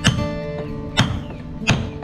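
Three sharp hammer blows, a hammer striking a steel tool set against the wooden hull planks, roughly a second apart, over acoustic guitar music.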